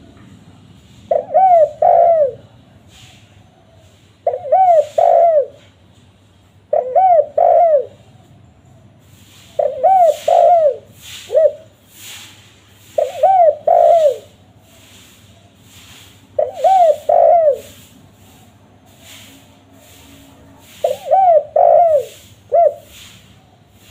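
Spotted dove (tekukur) cooing: short phrases of two or three falling coos, repeated every three to four seconds. Faint rapid high ticks sound behind it from about a third of the way in.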